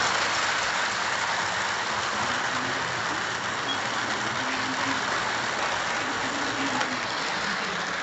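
Lionel O-scale freight cars rolling past close by on FasTrack, their metal wheels making a steady whirring rumble on the track.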